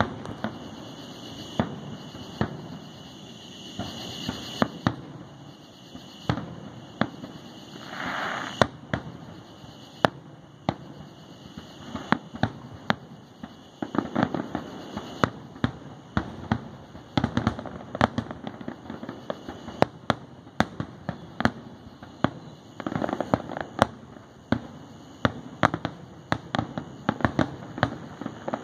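Aerial fireworks shells bursting in a display: a long run of sharp bangs at irregular intervals, with thicker volleys of rapid bangs about halfway through and again near the end.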